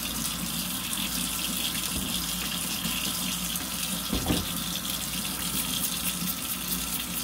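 Tap water running steadily as a small engine part is rinsed clean, with a single knock about four seconds in.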